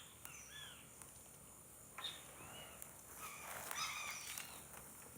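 Several short, arching chirping animal calls, busiest between about three and four and a half seconds in, over a steady high insect drone.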